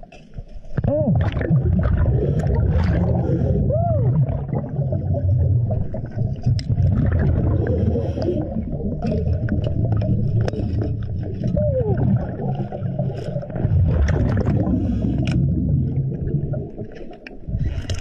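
A scuba diver's breathing heard through an underwater camera: a continuous low bubbling rumble from the regulator and exhaled bubbles, with scattered faint clicks. It dips briefly near the start and again shortly before the end.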